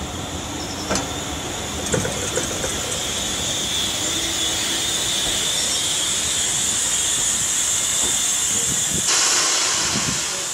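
Steam-hauled passenger coaches rolling slowly past, with a few wheel clicks early on and a steady hiss of steam escaping from beneath the coaches. The hiss grows louder near the end.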